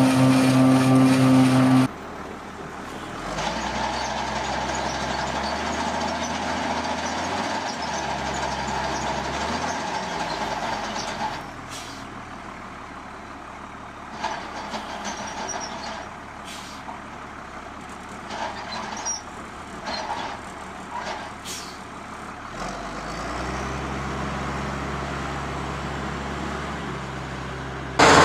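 Heavy machinery engines running in several short clips that cut abruptly from one to the next. A quieter stretch in the middle carries scattered knocks and clanks.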